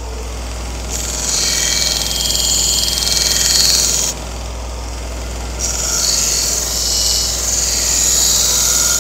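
2x42 belt grinder running with a steady motor hum, and a knife edge pressed twice against its felt belt charged with blue compound, each pass a hissing rasp lasting about three seconds: one pass per side to strip the last burr near the tip.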